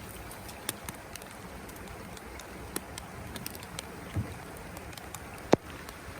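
Rain falling: a steady hiss with scattered ticks of drops. A low thump comes a little after four seconds in, and a sharp loud click about five and a half seconds in.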